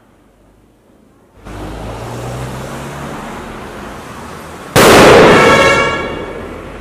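Steady rushing noise starts about a second and a half in, then a firecracker goes off with a loud bang about five seconds in, echoing and fading over about a second and a half.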